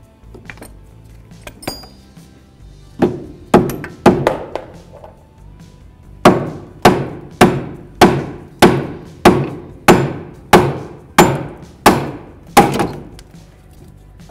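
A hammer striking a car's rear upper control arm to knock the stuck arm out of the rear knuckle. There are about fourteen sharp blows in all: three spaced ones, then a steady run of eleven at nearly two a second.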